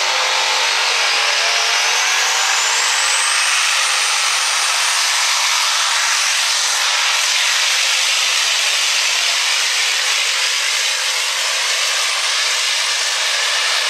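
Super stock diesel pickup's Duramax engine running flat out under load, pulling a weight-transfer sled: a loud, steady, harsh roar. A high whistle climbs in pitch over the first few seconds and then holds.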